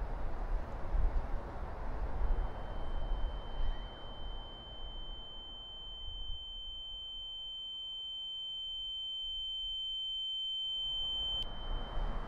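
Street noise with a low traffic rumble fades away as a steady high-pitched ringing tone takes its place. The tone swells until it cuts off abruptly with a click near the end, and the street noise comes back.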